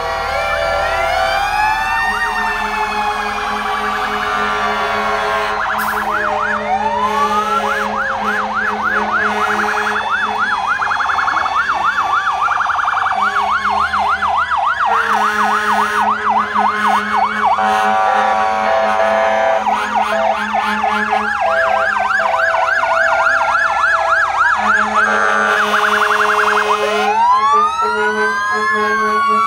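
Several fire engine sirens sounding at once, overlapping: slow rising-and-falling wails mixed with stretches of fast yelping sweeps at about two to three a second. Spells of steady held horn tones come in about halfway through and again near the end.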